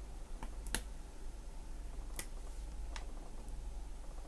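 Craft knife cutting a paper part free from a paper-craft sheet on a cutting mat: a few faint, sharp clicks at irregular intervals, over a low steady hum.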